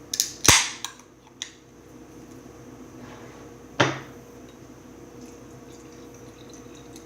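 A beer can being opened: a few sharp clicks and a crack as the pull tab is worked, loudest about half a second in, then one more sharp knock near four seconds in.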